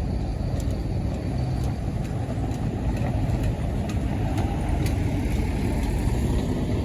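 Large vehicle engines, most likely tour buses, running with a steady low rumble, with faint light ticks over it.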